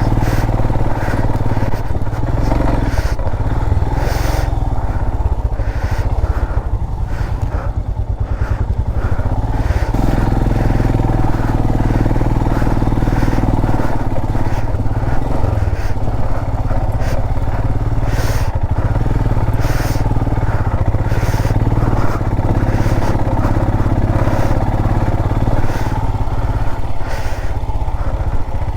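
Motorcycle engine running steadily while riding a rough off-road trail, with frequent short knocks and clatter from the bumps.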